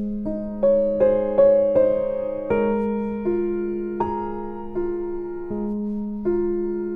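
Background music: a slow, gentle piano melody over sustained low notes.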